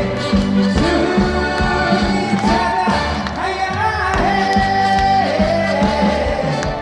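A singer performing a Korean trot song live over a full band accompaniment, holding long notes that waver in vibrato.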